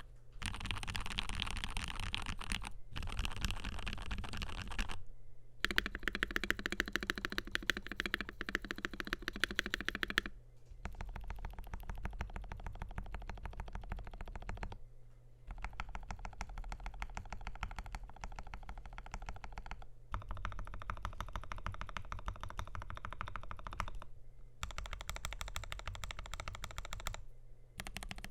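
Fast typing on a FiiO KB3 mechanical keyboard with lubed, filmed Gateron G Pro 3.0 Yellow linear switches, a stainless steel plate and translucent PC keycaps: a dense run of keystroke clacks. The typing breaks off briefly every few seconds, and the tone of the keystrokes changes a little from one run to the next.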